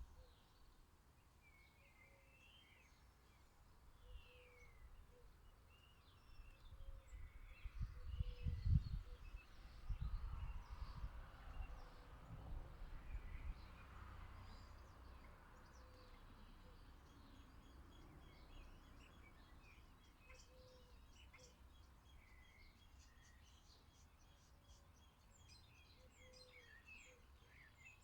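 Faint garden birdsong: many small birds chirping and calling on and off, with a short lower note repeating every couple of seconds. A low rumble swells in about a third of the way through and fades over several seconds.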